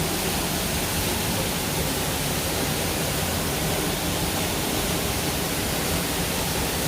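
Ponytail Falls, a waterfall, pouring steadily into its pool: a loud, even rush of falling water heard from the recess behind the falls.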